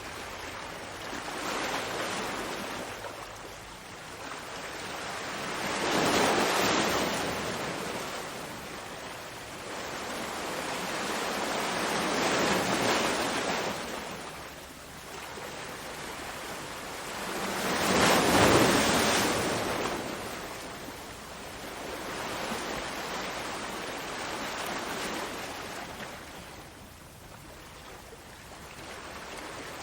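Ocean waves breaking and washing on the shore, rising and falling every few seconds, with the loudest wave about eighteen seconds in.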